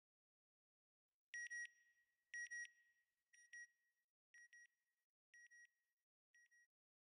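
A high double electronic beep repeated six times, about once a second, each pair fainter than the last like a fading echo.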